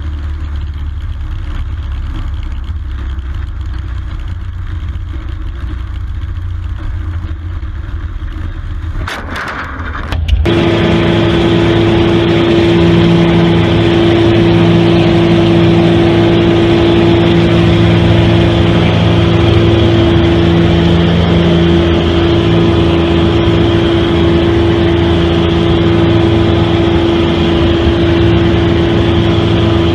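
A light plane's low rumble on approach. About ten seconds in, it gives way abruptly to the louder, steady drone of a small floatplane's piston engine heard inside the cabin, with a strong even hum.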